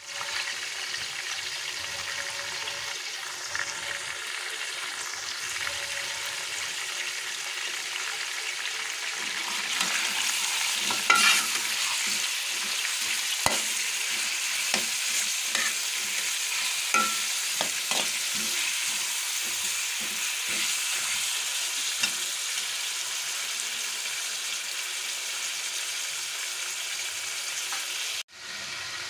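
Chicken pieces sizzling in hot oil in a metal pot while a metal spoon stirs them. From about a third of the way in, the spoon scrapes and clinks against the pot. The sizzle cuts out for a moment near the end.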